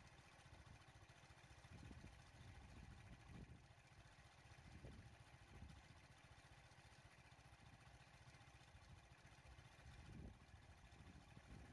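Faint, low rumble of an idling vehicle engine, with a few soft low thumps.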